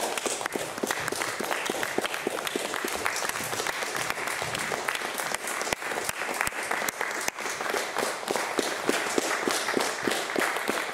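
Audience applauding: a steady mass of hand claps.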